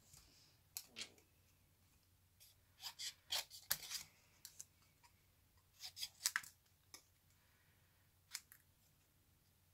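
Small craft scissors snipping through cardstock: short, sharp snips in several brief runs with pauses between.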